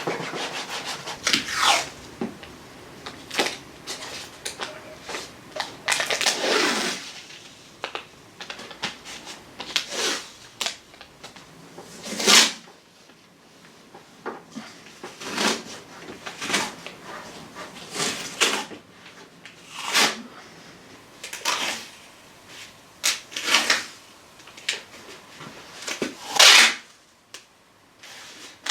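Masking tape being pulled off the roll in a series of short rips, spaced a second or two apart.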